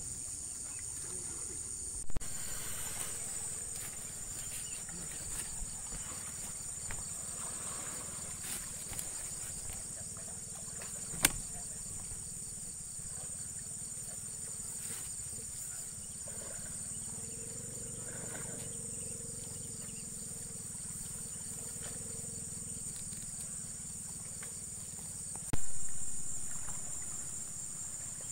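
Steady, high-pitched insect chirring, with a few sharp knocks: one about two seconds in, one near the middle, and a louder thump near the end that dies away.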